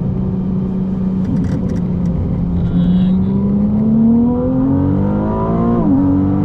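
Ferrari 296 GTB's twin-turbo V6, heard from inside the cabin, holding a steady note and then rising in pitch as the car accelerates. The pitch drops sharply near the end with an upshift, then settles at a higher steady note.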